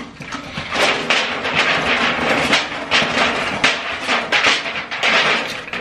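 Takeout food packaging being handled, with continuous crinkling and rustling and many small sharp crackles.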